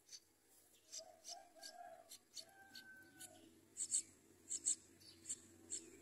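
Nestling songbirds begging with a rapid string of short, high-pitched cheeps, loudest about four seconds in, with a few lower wavering notes about a second in.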